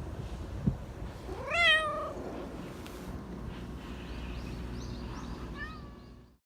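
A black Persian cat gives one clear meow that rises and then falls. A shorter, fainter meow follows near the end. It is the sweet, attention-seeking kind of meow this cat makes.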